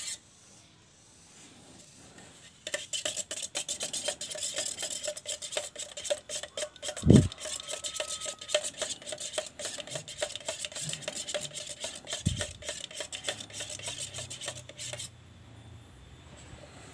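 A spoon stirring paint in a small metal paint can, scraping and clinking rapidly against the can's sides and bottom, with the can ringing faintly. The stirring starts about three seconds in and stops near the end, with one loud knock about seven seconds in.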